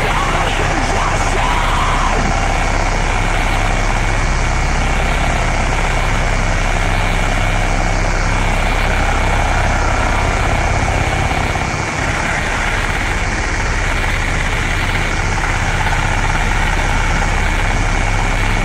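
Harsh power-electronics noise: a loud, dense wall of distorted static over a steady low rumble, with a thin high whine held above it. The noise dips briefly about twelve seconds in.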